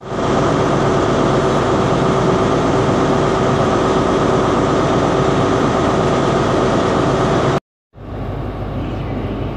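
Class 43 HST power car's diesel engine running while standing at a platform: a loud, steady drone with a constant hum over it. It cuts off about seven and a half seconds in, and a quieter steady engine noise takes over.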